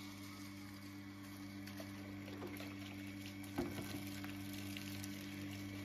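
Water from a garden hose running and splashing into a plastic tub, over a steady low hum. A light knock comes a little past halfway.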